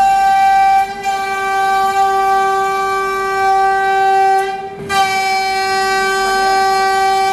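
CNC router spindle whining at a steady high pitch while it mills a plywood spoilboard. The whine dips briefly about a second in and again near five seconds.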